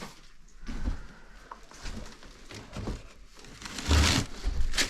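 Irregular rustling and knocking as objects are handled and moved about, with a heavier thump about four seconds in.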